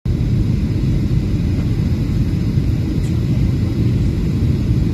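Steady low rumble of an airliner's engines and airflow heard from inside the passenger cabin in flight.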